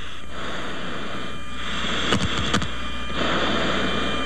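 Radio static: steady hiss on an open radio channel, growing stronger about one and a half seconds in and again around three seconds in, with two short clicks a little after two seconds.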